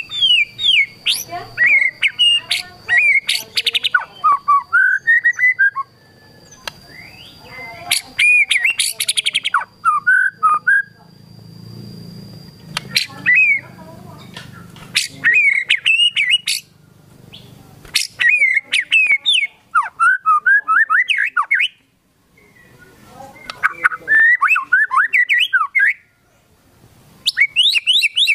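White-rumped shama (murai batu) singing in loud bursts of fast, varied whistled phrases and rapid-fire trills, with a pause of a second or so between bursts. Its song is packed with imitated phrases ('full isian').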